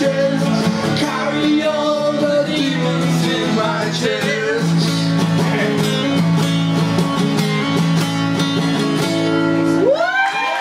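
Live acoustic band playing: two strummed acoustic guitars with male lead vocals. The song stops near the end, and cheering and whooping from the audience begins.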